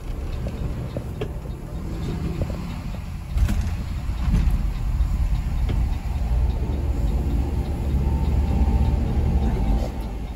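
Coach bus on the move: a steady low engine and road rumble that grows louder about three and a half seconds in.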